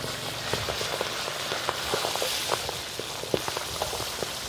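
Whole fish deep-frying in hot oil in a wok: a steady sizzling hiss broken by many quick crackling pops of the oil.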